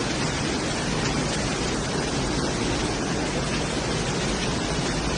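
Steady rush of a waterfall: water cascading down the rocks.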